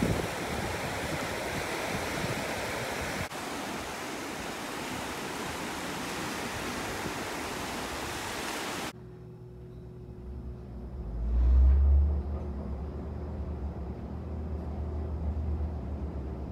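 Shallow surf washing around bare feet and waves breaking on a sandy beach. About nine seconds in it changes suddenly to the low, steady hum and rumble of an Otis elevator car travelling down, which swells loudest a couple of seconds later.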